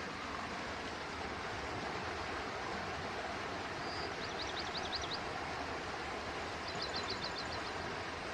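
Forest stream flowing steadily, an even rush of water. Over it, a short series of rapid high chirps about four seconds in, and another, longer series about seven seconds in.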